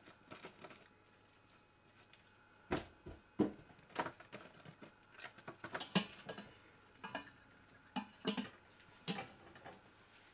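A young red squirrel clambering over a cardboard box, metal tins and a pot lid: its claws and feet make scattered clicks, taps and light clinks, starting a couple of seconds in.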